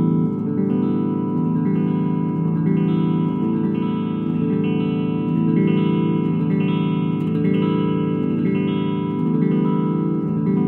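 Electric guitar strummed through an Ampeg V4 tube amplifier head: the same chord is struck steadily, a little more often than once a second, while the amp's tone controls are turned to sample their effect.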